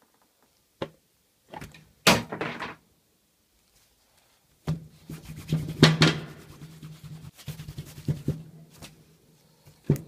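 A few sharp knocks and clatters, then a steel hammer head handled and rubbed with a cloth: a run of small knocks and rustling over a low steady hum from about five seconds in.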